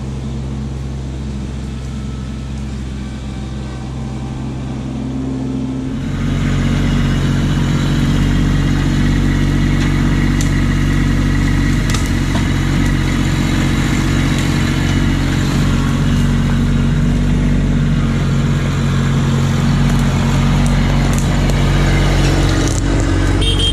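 A vehicle engine running steadily at a low speed, then stepping up to a higher, louder speed about six seconds in and holding there.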